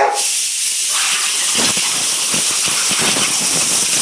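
Compressed air hissing loudly and steadily from an air compressor's blow nozzle, switched on abruptly, with irregular lower sounds beneath it from about a second and a half in.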